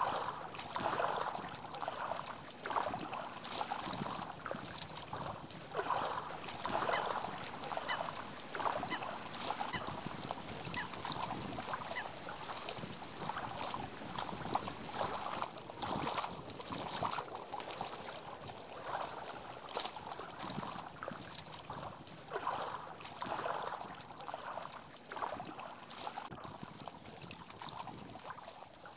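Small waves lapping irregularly against the lake shore, in uneven splashy surges.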